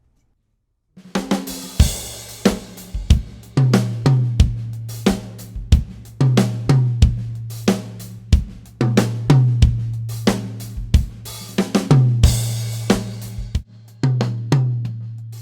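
Acoustic drum kit played in a studio groove: kick, snare, hi-hat and cymbals, with the toms ringing on in a low sustained tone under the hits. It starts about a second in, after a moment of near silence.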